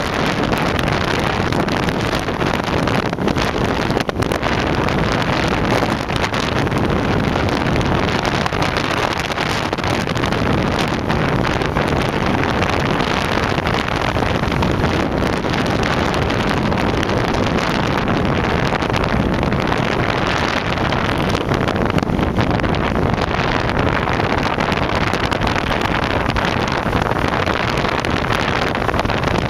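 Honda CBR1000F inline-four motorcycle engine running at a steady cruise, mixed with wind rushing over the microphone.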